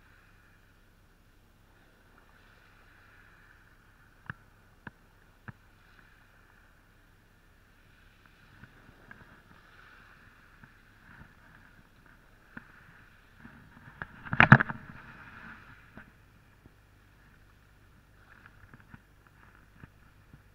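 A spinning reel and rod being handled close to the microphone. Three sharp clicks come about four to six seconds in, and a burst of loud knocks and rattles comes about two-thirds through, over a faint steady hiss.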